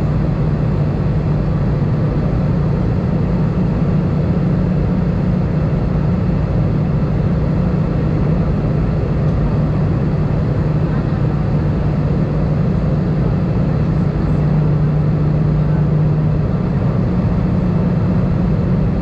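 Steady jet engine and airflow drone heard inside the cabin of an Airbus A319 in flight, with a strong low hum at a constant pitch.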